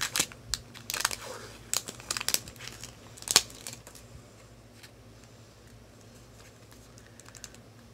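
Thin plastic lid crackling and tearing as it is peeled off a small plastic cup of modelling clay, with one sharp crackle about three and a half seconds in. After that, only a few faint clicks of handling.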